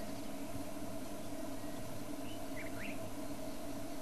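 A steady low hum runs under two faint, short bird chirps about two and a half to three seconds in.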